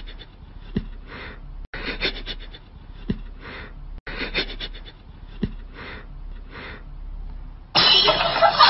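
Short breathy puffs and hisses with a soft low knock, the same pattern repeating three times about every two and a half seconds, then music starts near the end.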